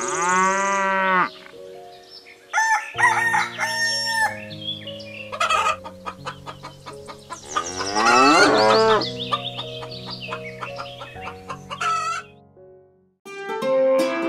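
Rooster crowing and clucking over background music, with the loudest crow about eight seconds in.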